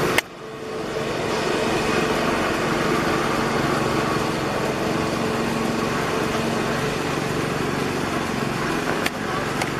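Steady engine drone: a few held low tones under a constant hiss. A sharp click comes just after the start, with a brief drop in level, and another click near the end.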